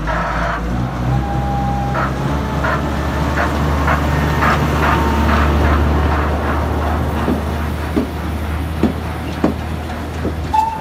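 Iyo Railway Botchan Ressha, a diesel-powered replica steam locomotive, pulling out of the station: a steady low engine drone with a regular puffing beat about every two-thirds of a second.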